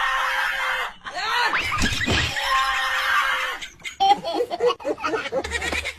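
A high-pitched voice letting out two long, held screams, then breaking into a run of quick laughs about four seconds in.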